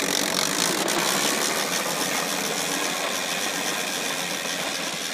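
Plastic wheels of a large toy fire truck rolling over rough asphalt, a loud steady grinding rattle as the truck is pushed and pulled along.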